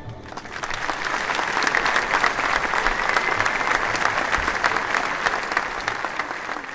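Audience applauding, rising over the first second and then holding steady, just after an orchestral piece ends.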